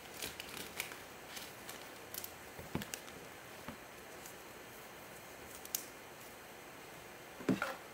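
Trading card handled in gloved hands: faint rustles of a plastic card sleeve and a few light clicks, with a sharper tap near the end as the card goes into a rigid plastic toploader.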